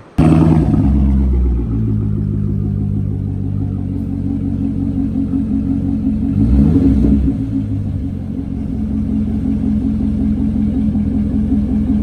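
Chevrolet C6 Corvette Grand Sport's 6.2-litre LS3 V8 running through its quad exhaust: it comes in loud just after the start, settles into a steady idle, and gives one short rev about halfway through.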